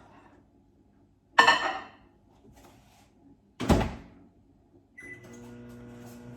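A ringing knock and then a heavier thunk, as of a microwave oven door being handled and shut. About five seconds in there is a short beep, and the microwave starts running with a steady hum, heating milk for one minute.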